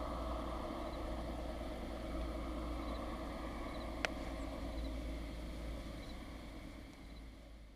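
Steady low rumble with a hiss over it, and a single sharp click about four seconds in. It fades out near the end.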